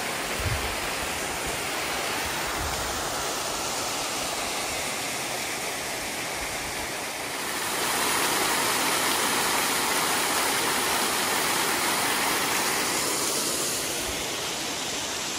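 Coliseum Falls, a small stepped cascade pouring over rock ledges, giving a steady rush of falling water. It grows louder about halfway through and eases again near the end.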